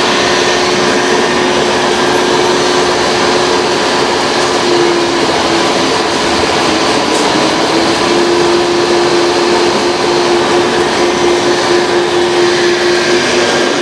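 A small electric motor whines steadily under a loud hiss, its pitch dipping briefly about halfway through and then settling again, likely from a radio-controlled model machine.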